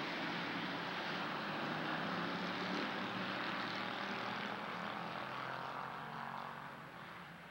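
A pack of hobby stock race cars running together at speed, their engines blending into one steady drone that fades over the last couple of seconds as the field pulls away down the far straight.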